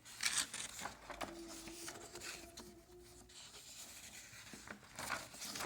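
Scratching and rubbing of packaging being handled, with a louder scrape near the start and another near the end.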